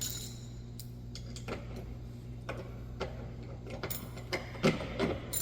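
Hand ratchet clicking in irregular strokes as bumper bolts are screwed in, over a steady low hum.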